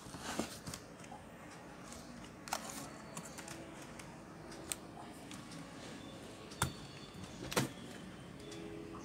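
Handling noise from a Lenovo S10 netbook: a handful of scattered plastic clicks and knocks as hands press on its keyboard and turn the laptop over, the two loudest knocks coming in the second half.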